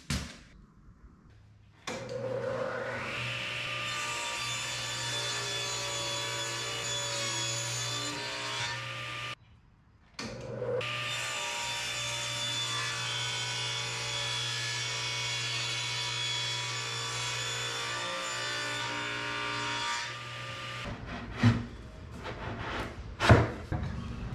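Table saw running and cutting a plywood panel: a steady whine with cutting noise, broken by a brief gap about nine seconds in. Near the end, two sharp knocks.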